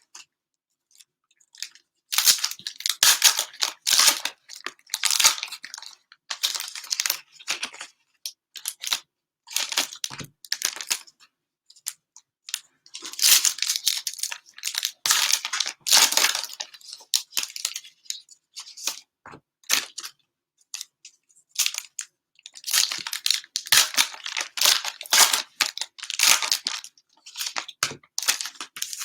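Cellophane wrappers of Panini Mosaic NFL cello packs being torn open and crumpled by hand: repeated bouts of crinkling and ripping, a second or a few seconds each, with short pauses between.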